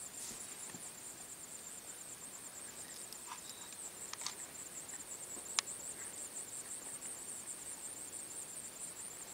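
Outdoor insect chorus, a steady high-pitched pulsing trill, with a few sharp clicks or snaps about four and five and a half seconds in.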